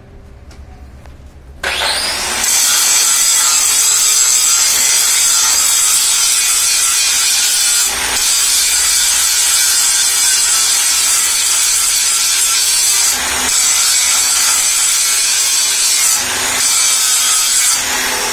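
Power tool, most likely an angle grinder, spinning up a couple of seconds in and then grinding or cutting metal steadily and loudly, with a few brief dips in load. It stops shortly before the end.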